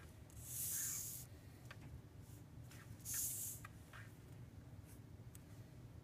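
Felt-tip marker handled and set to paper, with a few faint ticks. Two short hissing sounds stand out, about a second in and again about three seconds in.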